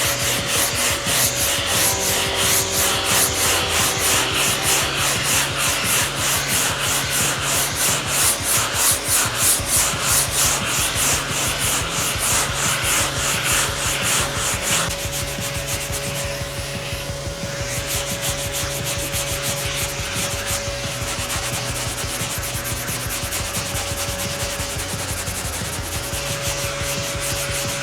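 Hand block sanding of a car fender with 80-grit sandpaper: fast, even back-and-forth scraping strokes, about three a second. Just before halfway the strokes turn softer and less distinct.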